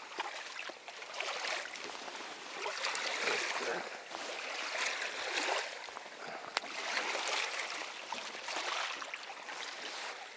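Water splashing and lapping against a small boat's hull, in irregular swells, with a sharp knock about six and a half seconds in.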